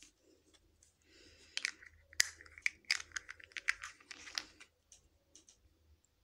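Small plastic make-up packaging being handled: a quick run of sharp clicks and crinkles in the middle, with scattered lighter ticks before and after.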